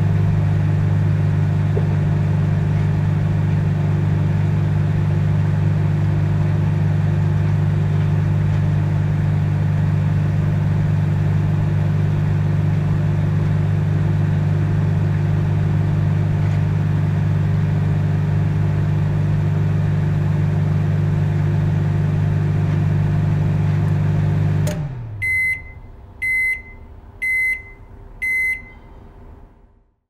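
Microwave oven running with a loud, steady hum. About 25 seconds in the hum shuts off and winds down quickly, followed by four evenly spaced high beeps about a second apart that signal the end of the heating cycle.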